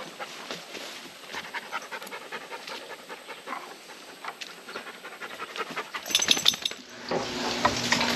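A dog panting, with small clicks mixed in. Near the end it gives way to the sizzle of frog legs frying in a pan.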